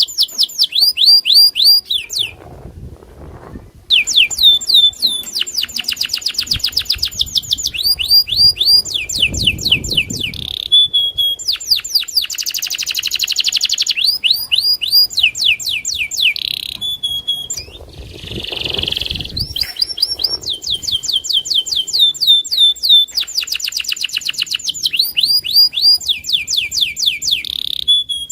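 Domestic canary singing a long, loud song of fast trills. It moves through runs of rapidly repeated sweeping notes, each run a different note type, with a brief pause about two seconds in.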